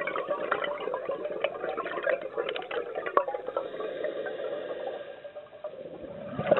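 Underwater sound picked up inside a camera housing: a muffled bubbling, gurgling hiss with many small crackles, typical of a scuba diver's exhaled air bubbles. It fades a little about five seconds in, then swells again suddenly near the end.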